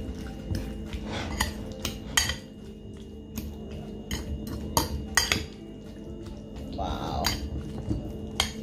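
Metal fork clinking and scraping against a ceramic bowl with irregular sharp clinks, stirring sardines and chopped vegetables together with dressing.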